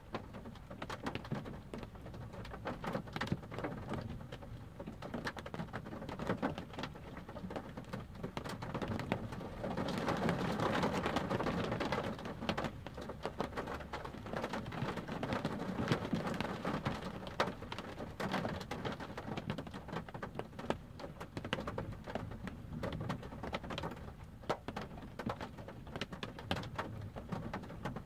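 Rain pattering on a parked car's roof and windshield, heard from inside the car as a steady run of individual drop ticks, with a louder swell of noise lasting a few seconds about ten seconds in.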